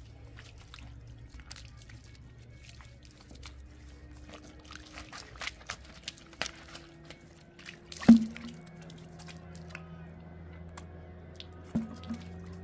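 Water poured from a plastic ewer splashing and dripping over feet and onto a concrete floor, as someone washes their feet. A sharp knock about eight seconds in is the loudest sound, and a smaller knock comes near the end.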